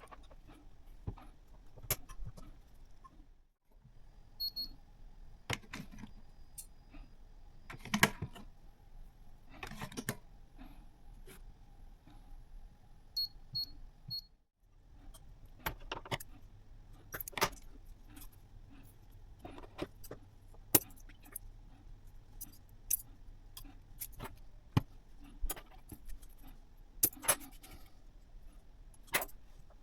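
Scattered sharp clicks, taps and clinks of small hard parts and tools being handled, at an uneven pace, with a few short high beeps partway through.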